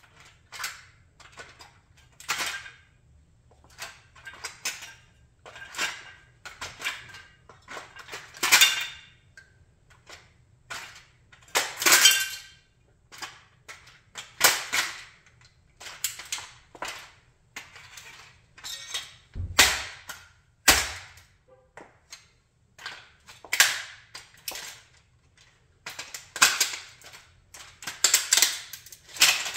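A die-cast model Chrysler 300B cracking and creaking under a sandal as it is crushed: its metal and plastic body gives way in a series of sharp snaps and clicks, every second or two, with a couple of heavier thuds about two-thirds of the way through and a quick run of cracks near the end.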